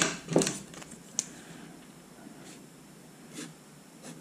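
Pens handled on a desk: a few short clicks and taps in the first second or so as one pen is put down and another picked up, then a faint brush of a felt-tip pen on paper.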